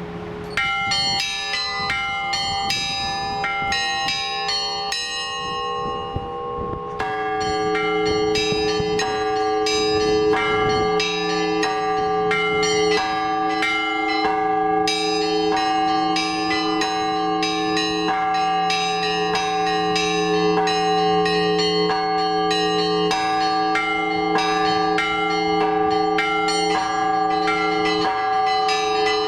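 Orthodox church bells rung by a bell ringer: quick strikes on small high bells over the lasting ring of larger, lower bells. The small bells thin out about five seconds in, and the full peal comes back about seven seconds in.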